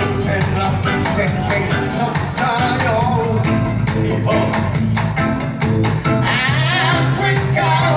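Live reggae band playing: drum kit keeping a steady beat under bass, guitars and keyboards, with a male lead singer's voice over the band.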